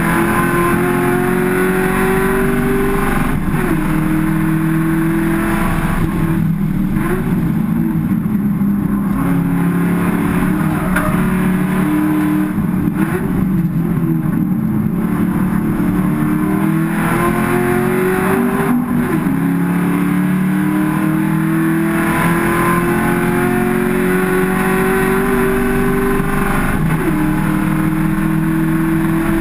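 Race car engine heard from inside the cockpit at racing speed, its pitch repeatedly climbing under acceleration and dropping back at gear changes and braking, again and again over the lap.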